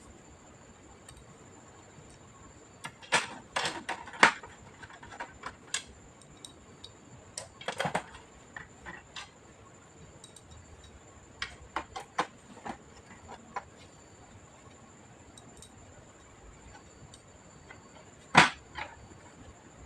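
Irregular small clicks, taps and knocks of hard plastic and metal parts being handled during work on a computer's insides, in scattered clusters, with the loudest knock near the end.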